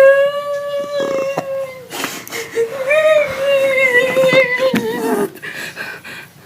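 Two long, drawn-out vocal notes: the first held steady for about two seconds, the second wavering for about three seconds and sliding down in pitch at the end.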